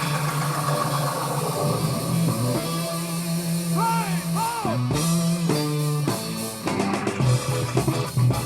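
Funk music played through Klipsch R-15PM powered bookshelf speakers: a steady bass line, a couple of bending notes about halfway, and drums coming in near the end.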